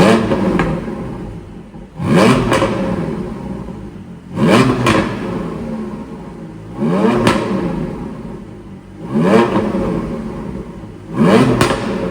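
Porsche 718 Boxster GTS 4.0's flat-six engine revved in short throttle blips, about six of them every two seconds or so, each rising and then falling back. Sharp pops and crackles come from the exhaust on the overrun: the sound of an ECU pop-and-crackle tune.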